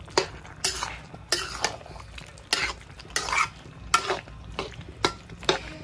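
A spatula stirring and scraping a thick chicken and ash gourd curry in a metal kadai, in repeated strokes about two a second, with the curry frying.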